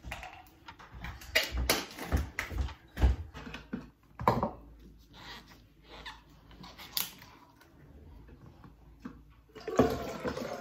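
Clicks and knocks of plastic bottles and containers being handled on a kitchen counter, thickest in the first few seconds. Near the end, water is poured from a plastic bottle into a child's plastic drinking bottle.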